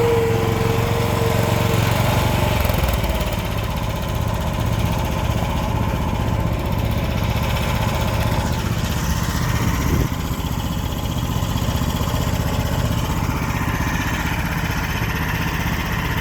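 AGT mini excavator's small engine running steadily. A high whine fades out within the first two seconds, and there is a single knock about ten seconds in.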